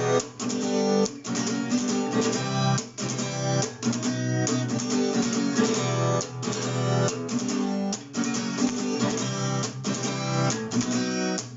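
Acoustic guitar strummed in a steady rhythm with chord changes: an instrumental passage between sung verses.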